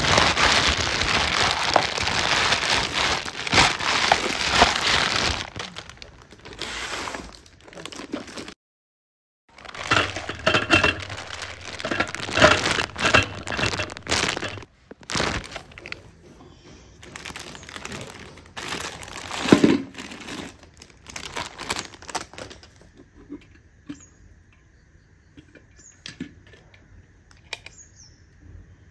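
Plastic wrapping crinkling and rustling as mixer grinder jars and parts are handled out of their packaging, with a few light clinks of stainless steel; dense and loud in the first few seconds, then in shorter bursts, quieter near the end.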